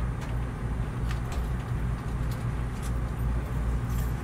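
Street ambience: a steady low rumble of city traffic, with a few faint light ticks on top.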